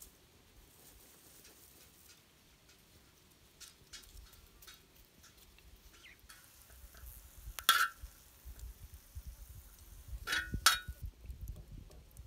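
Metal kitchenware being handled: a few light clicks, then three sharp metallic clinks that ring briefly. One clink comes about two-thirds of the way in, and two come close together near the end.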